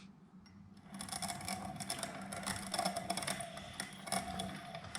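Piston ring filer grinding the end of a piston ring to open up its end gap, starting about a second in with a steady scraping whir.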